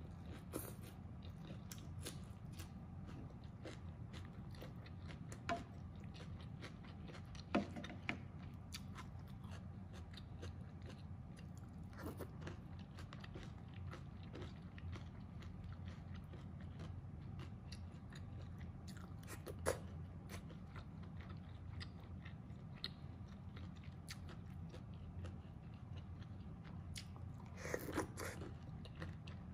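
Close-miked eating: chewing and biting on a crisp lettuce leaf and mapo tofu with rice, with frequent small crunches and mouth clicks over a steady low hum. Near the end a louder mouthful is taken from a wooden spoon.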